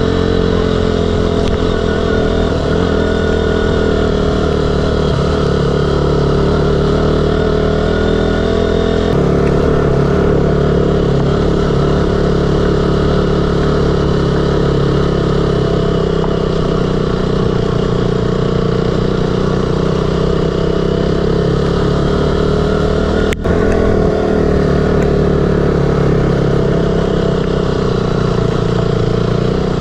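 KTM Duke 200's single-cylinder engine running steadily while riding, with a shift in the engine note about nine seconds in and a momentary break about twenty-three seconds in.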